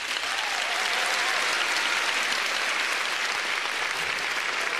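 Audience applauding: a steady, even spell of clapping.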